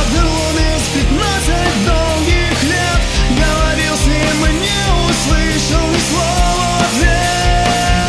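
Rock music with no vocals: a heavy band passage of bass and a steady low drum pulse, under a lead melody that slides and bends between sustained notes.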